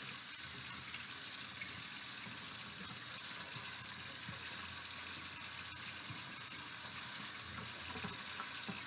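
Kitchen sink tap left running: a steady, even stream of water pouring into the sink.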